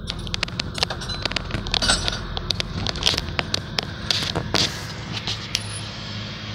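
Inside a slowly moving vehicle: a steady low engine hum with many irregular sharp clicks and crackles over it, which thin out and stop near the end, leaving only the hum.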